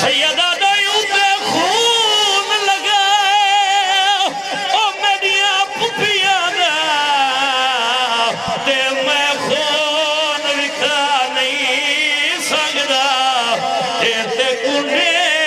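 A man's voice singing a long, drawn-out mourning lament in the wavering, melismatic style of a masaib recitation, the notes held with heavy vibrato.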